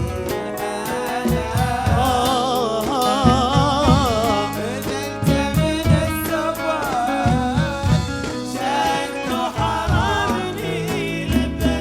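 Arabic song: a singer's ornamented vocal line, the pitch wavering and sliding, over steady, regular percussion and instrumental backing.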